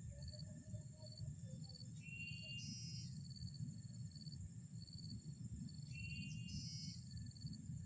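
Insects chirping outdoors: a steady high buzz with a regular pulsed chirp, and a louder trill about every four seconds, over a low rumble.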